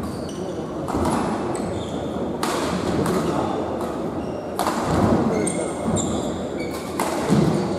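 Badminton rally: racket strings striking the shuttlecock in about six sharp cracks a second or two apart, with short high squeaks of shoes on the court mat between them, in an echoing indoor hall.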